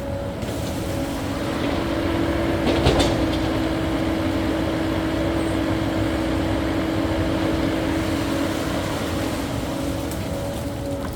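Cat 308E2 mini excavator running while it works, its engine and hydraulics holding a steady pitched drone, with a single short clunk about three seconds in.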